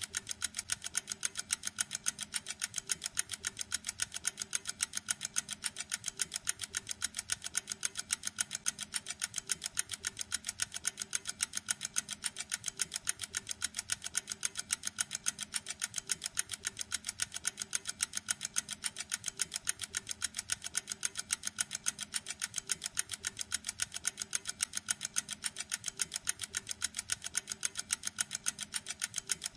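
Pocket watch ticking steadily: rapid, perfectly even ticks, several a second.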